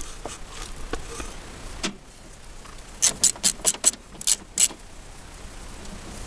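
Hand tools clacking during work on the van's engine: a single knock near two seconds in, then a quick run of about eight sharp clicks over a second and a half.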